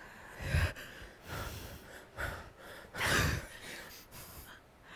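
A few short breathy vocal sounds from the actors, exhales and gasps with gaps between them; the loudest comes about three seconds in.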